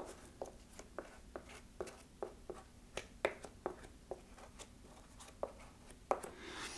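Quiet, irregular ticks and scratches of a small brush spreading contact cement on the back of a cardboard mouth plate, about two or three strokes a second.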